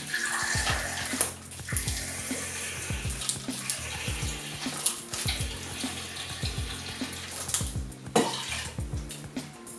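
Citrus juice squirted from a fruit-shaped plastic squeeze bottle into a jigger: a steady hissing stream of liquid that eases off about eight seconds in. Background music with a steady beat plays underneath.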